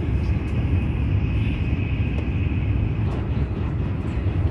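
Steady low rumble of a Frecciarossa high-speed train running at speed, heard from inside the passenger coach, with a faint high whine over it for the first few seconds.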